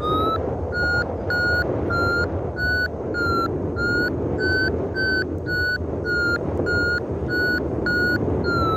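Paragliding variometer beeping evenly, about two and a half beeps a second, its pitch rising a little midway and then easing back: the vario's climb tone, the sign that the glider is going up. A steady rush of wind on the microphone lies underneath.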